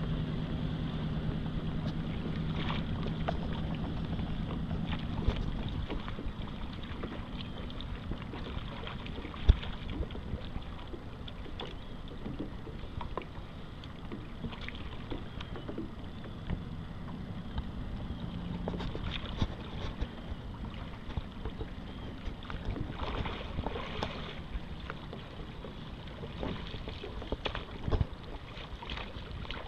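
Water lapping and splashing around a swimmer in the water beside a sea kayak as he handles the paddle and a paddle float, with a few sharp knocks, the clearest about nine seconds in.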